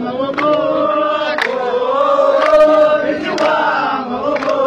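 A crowd singing a chant together, many voices holding the same sustained notes, with a sharp clap-like strike about once a second.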